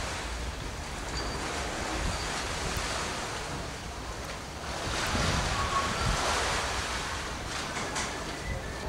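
Wind blowing over the camcorder microphone on the open deck of a ship at sea, a steady rushing noise with a low rumble that swells louder about five seconds in.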